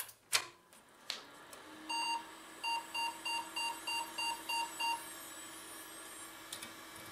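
PC speaker beeping a BIOS error code at power-on: one beep, then eight short evenly spaced beeps, about three a second, over a steady hum as the computer starts up, after a few clicks near the start. Eight short beeps signal that the video memory cannot be reached, pointing to a faulty graphics card; the speaker says it doesn't sound good.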